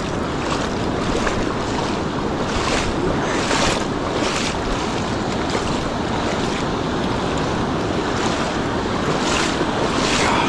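Sea surf washing steadily around a wading angler, with wind rumbling on the microphone and a few louder swishes of water, about a third of the way in and near the end.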